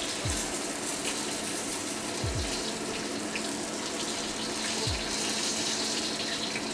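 Pork meatballs sizzling in hot oil in a round-bottom wok, a steady hiss, with a few light clicks of metal tongs as the seared meatballs are lifted out.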